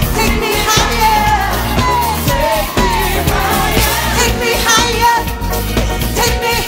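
Live band music with a steady beat, drums and keyboards, and a female lead singer whose voice slides up and down in long sung phrases over the band.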